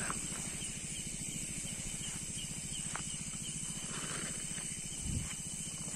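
A steady high-pitched chorus of night insects such as crickets, over the low hum of a car engine as the car pulls away. There is a brief low thump about five seconds in.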